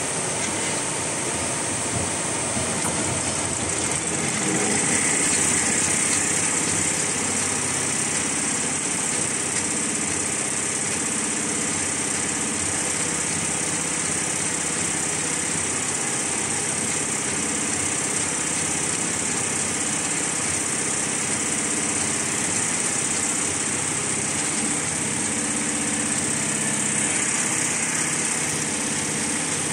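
Richpeace multi-head computerized embroidery machine running and stitching: a steady mechanical chatter of needles and drive with a constant hum.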